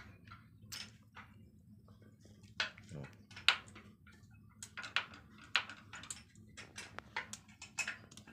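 Irregular light metal clicks and clinks of hands and tools handling the rocker arms and valve gear on an opened Isuzu diesel cylinder head, over a faint steady low hum.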